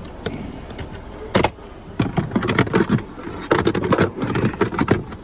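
Plastic trim cover over a 2019 Vauxhall Vivaro's OBD port being pulled free by hand, its retaining tabs clicking and the panel rattling, with a sharp knock about a second and a half in and a run of clatter after.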